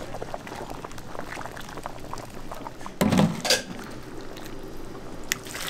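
Soup broth scooped from a simmering cauldron with a metal ladle and poured into a takeout bowl, with the loudest splash of liquid about three seconds in.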